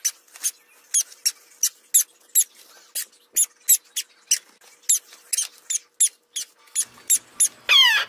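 Baby African grey parrot chick giving high-pitched squeaky food-begging calls while being syringe-fed. The calls come as short falling peeps, about two to three a second, with one longer, louder call near the end.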